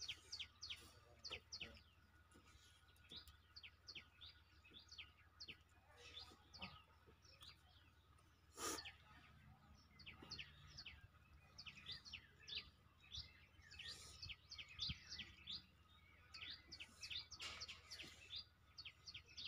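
Small birds chirping faintly, with short high chirps coming in quick runs throughout, and one sharp click about nine seconds in.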